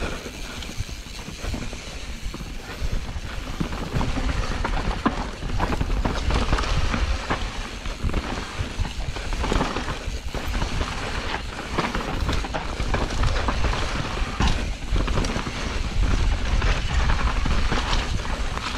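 Mountain bike being ridden down a rough singletrack trail: tyres rumbling over dirt and rock, with frequent knocks and rattles from the bike over bumps, over a constant low rumble.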